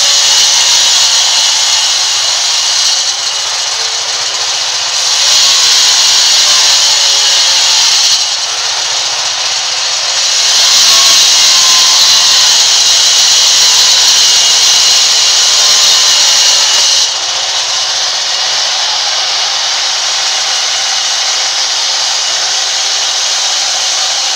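Log band saw running and cutting lengthwise through a large log: a loud, steady, hissing whine that grows louder and eases off several times as the blade works through the wood, settling steadier and quieter for the last part.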